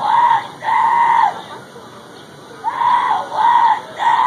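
A child yelling: two long, loud, flat-pitched shouts, a pause, then three more in quick succession.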